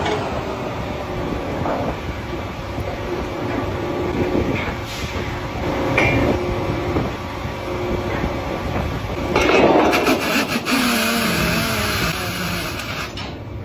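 Drilling rig floor machinery running steadily while drill pipe is tripped, with scattered metallic knocks and clanks from the pipe-handling gear and a louder burst of clanking about ten seconds in.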